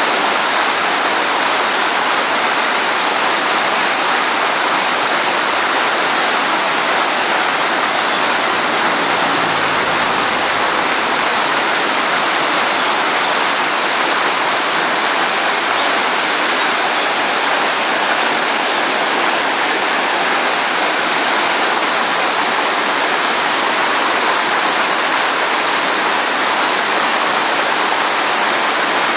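Rushing water running steadily, a dense even sound with no breaks or changes.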